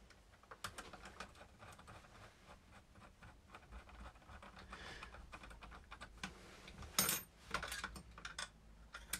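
Small hand tools clicking and tapping against the metal parts of a Genius FR2 RC car's anti-roll bar linkage as the link is refitted and screwed down: a run of light ticks, with a louder clatter about seven seconds in.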